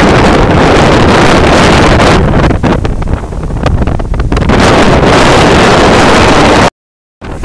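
Strong wind from Hurricane Maria buffeting the microphone, loud and rough, over the wash of storm surf breaking on the beach. The sound cuts out completely for about half a second near the end.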